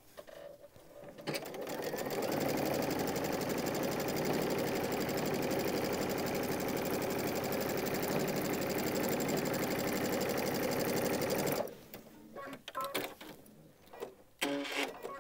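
Baby Lock Destiny sewing machine stitching a seam through two layers of cotton quilting fabric: it starts about a second in, runs at an even, fast stitching speed for about ten seconds, then stops abruptly. A few light clicks follow near the end.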